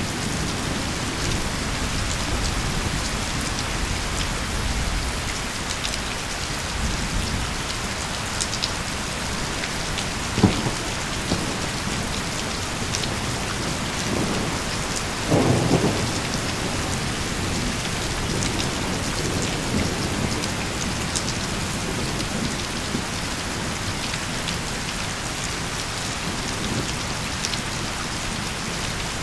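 Steady heavy rain falling, with low rolling thunder in the first few seconds. A sharp single crack comes about ten seconds in, and a short louder burst of thunder about fifteen seconds in.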